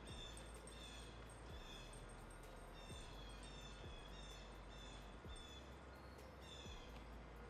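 Faint bird calls: short, high, falling chirps repeated steadily, one every half second to a second.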